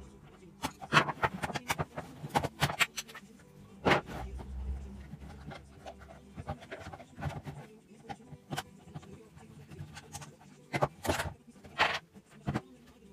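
Irregular clicks, knocks and rubbing as the stainless-steel housing, motor and power cord of a fruit juicer are handled and pulled apart. Sharper knocks come about a second in, around four seconds in, and twice near the end.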